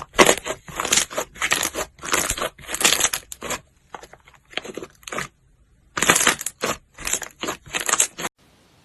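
Slime being squeezed and pressed by hand, in a run of crunchy, crackling bursts with short pauses. It cuts off suddenly near the end.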